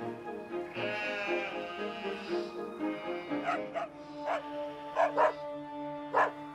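Background music with sustained notes; from about halfway in, a dog barks in short, sharp barks about six times.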